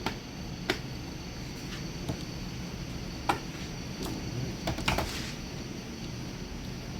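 Scattered light clicks and taps of plastic paint-mixing cups and spray-gun parts being handled, about seven in all, with a quick cluster and a short rustle about five seconds in, over a steady background hum.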